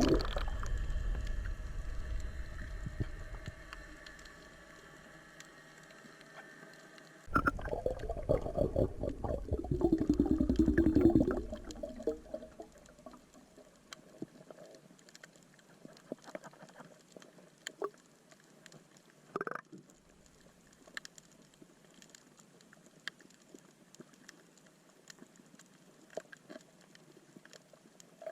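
Underwater water noise: a burst of bubbling and gurgling fades in the first few seconds, then a sudden loud stretch of bubbling starts about seven seconds in and lasts some four seconds. After that it is quiet, with scattered faint clicks and crackles.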